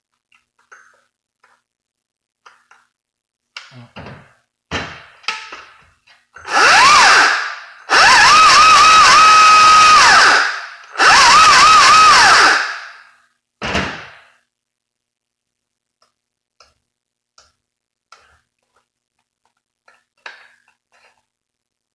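An electric power tool's motor run in three short trigger pulls, each spinning up, wavering as the trigger is feathered, holding a steady whine and winding down. A few knocks of handling come before and after.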